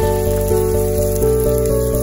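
Background music with sustained notes changing about every half second, over a faint sizzle of sliced onions frying in oil in a pressure cooker.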